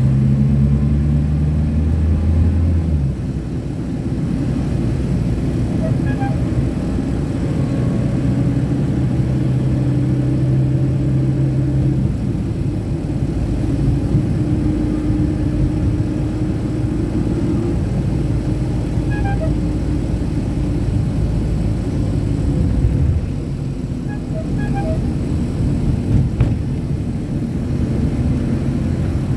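Engine and road noise from inside a moving vehicle: a steady low engine hum and rumble that shifts pitch a couple of times as the vehicle changes speed. A few faint, short high chirps sound over it.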